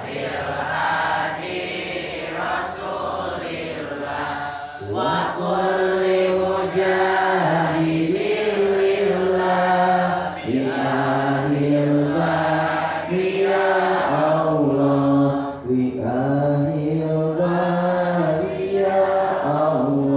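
A group of pupils chanting an Islamic devotional chant together in unison, with long held, gliding notes; the chanting grows louder about five seconds in.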